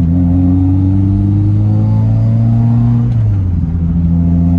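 Subaru WRX's turbocharged FA20 flat-four engine pulling under acceleration on the road, heard from inside the car; its pitch creeps up and drops about three seconds in at a gear change. It runs without the cylinder-4 misfire now that a failed direct injector has been replaced.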